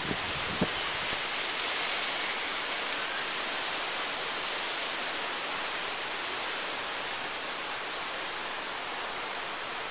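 Steady outdoor background hiss, with a handful of short, light clicks in the first six seconds as a 1911 pistol is handled and wiped down with a cloth.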